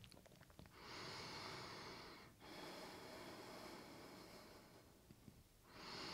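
Faint deep breathing of a person holding a yoga pose: one breath of about a second and a half near the start, a quieter stretch, and another breath beginning near the end.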